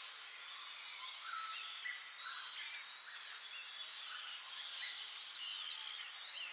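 A dense chorus of small birds chirping and warbling, many short rising and falling calls overlapping over a steady hiss.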